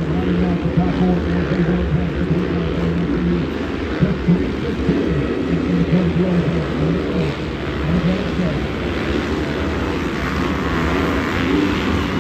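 Several 450-class motocross bikes racing past, their engines revving up and down over and over through the jumps and corners.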